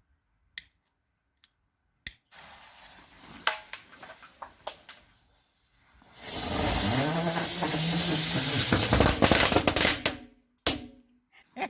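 A few sharp clicks, then a small hand-lit sparkler firework catching with a faint fizz and crackle, followed by a loud hissing spray of sparks lasting about four seconds.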